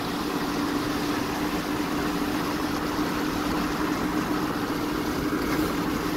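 Steady driving noise of a road vehicle heard from inside the cabin: an even road and engine hum with one constant low drone.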